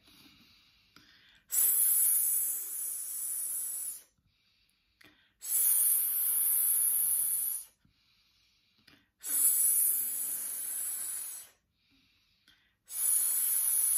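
A person making four long 'sss' hisses, each a little over two seconds, with short quiet pauses between them for breathing in. These are controlled out-breaths in a breath-control exercise.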